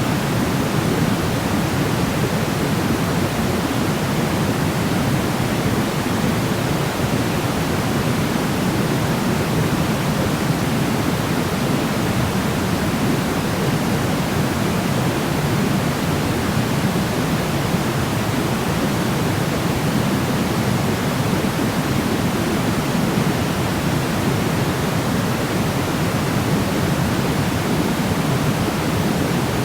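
Steady, unchanging noise from a sleep-sound track, an even hiss weighted toward the low end, more like pink noise than pure white noise.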